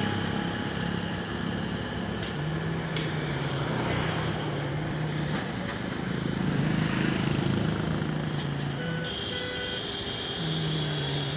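A motor running steadily with a low hum over constant background noise; the hum fades briefly a few times and comes back.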